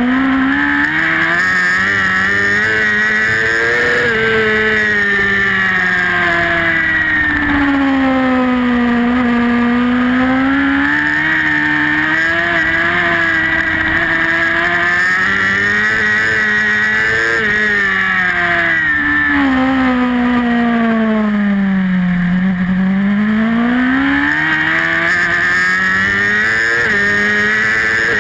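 Superbike racing engine recorded onboard at high revs, the pitch rising and falling as the rider works through the gears. The revs drop to a low about a third of the way in and again further on, climbing hard after each.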